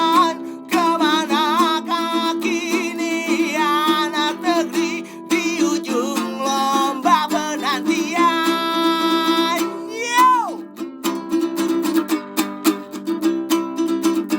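Music: a wordless sung melody of long notes with vibrato over a strummed ukulele-like string accompaniment. About ten seconds in, the voice slides down and drops out, leaving quick strumming alone.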